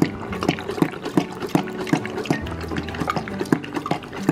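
Great Dane lapping water from a stainless steel bowl, a steady rhythm of wet laps about three a second.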